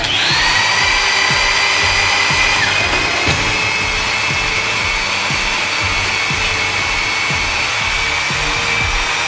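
Two drill presses at 2500 rpm driving self-drilling screws into 6 mm steel plate: a loud, high steady whine with grinding metal. After under three seconds one pitch drops out as the Trident-point screw breaks through, while the other keeps on as the typical-point screw fails to penetrate the plate.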